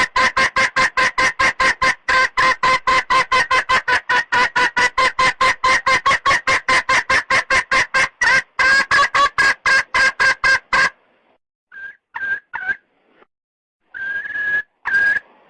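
Red junglefowl hen clucking fast and evenly, about five clucks a second, the hen call used to call in a cock. The clucking stops about 11 seconds in, followed by a few short, separate calls.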